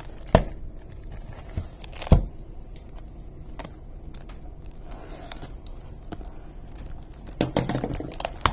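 Plastic shrink wrap on a trading-card hobby box being cut with a utility knife and handled, crinkling, with a few sharp clicks, the loudest about two seconds in, and a burst of crinkling near the end.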